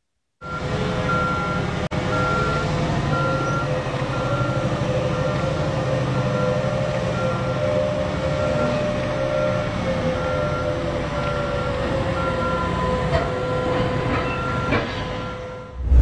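BelAZ 75710 mining dump truck running on its twin 16-cylinder diesel engines: a steady low rumble with a whine held on one pitch. A warning beeper sounds about one and a half times a second throughout.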